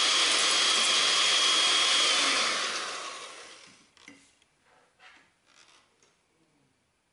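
Electric hand mixer running at speed in a glass bowl: a steady motor whir with a high whine that winds down and dies away about three seconds in. A few faint light knocks follow.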